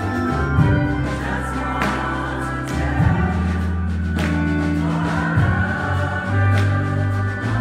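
Gospel choir singing in full voice over low sustained accompaniment chords that change every couple of seconds, with sharp percussive hits about every two seconds.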